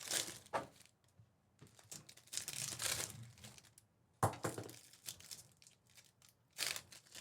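Trading-card pack wrappers being torn open and crinkled, in four bursts a second or so long, the third starting with a sharp crackle about four seconds in.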